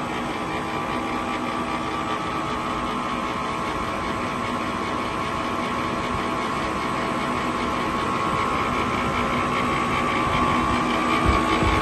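Roll-fed label die-cutting and rewinding machine running steadily, a continuous mechanical hum with several constant tones over a whirr of rollers and motors, with a short low bump near the end.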